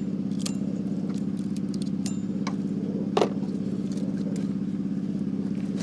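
A steady low mechanical drone with a fast, even pulse, like a running motor, with scattered light metallic clicks and one louder clank about three seconds in.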